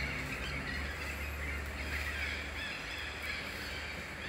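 Overlapping high, wavering animal calls, squeak after squeak, over a low rumble that fades about two and a half seconds in.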